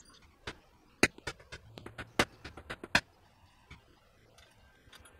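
A hammer striking a star-nut setting tool in a mountain-bike fork's steerer tube. About nine sharp knocks come in the first three seconds, three of them loudest, driving the star nut down into the tube.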